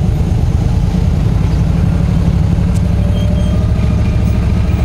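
Yamaha V Star 1300's V-twin engine running with a steady low rumble as the motorcycle rolls through slow town traffic.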